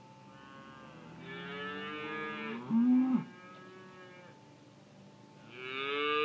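Dairy cow mooing: a long moo that builds up and ends in a short, louder, lower note about three seconds in, then a second loud moo starting near the end.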